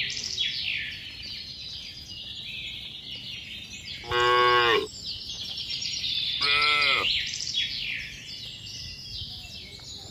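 Cattle mooing twice, in short, fairly high-pitched calls about four and six and a half seconds in; the second dips and then rises in pitch. A steady high chirring runs behind them.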